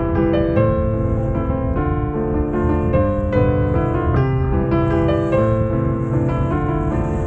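Background music: piano or electric piano playing a steady run of notes over a low accompaniment.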